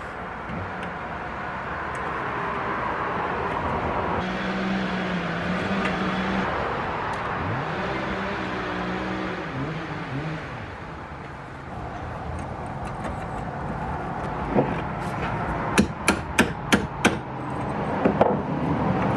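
Sharp metal-on-metal hammer taps on a steel punch, driving a pin out of a small rusty steel trap clamped in a vise. There is a single tap, then a quick run of five at about three a second, then one more near the end.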